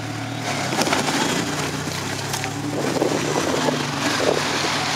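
A Mitsubishi Pajero's diesel engine running under load as the off-road trial truck crawls along, its revs shifting up and down a little, with a few knocks and rattles over a rough background noise.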